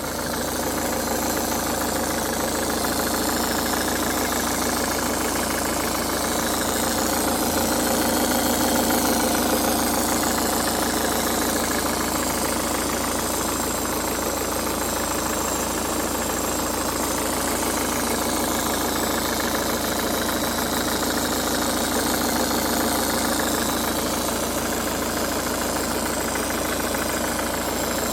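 Ford Focus Mk3 engine running at a steady idle from a cold start, making an abnormal noise that the owner is recording.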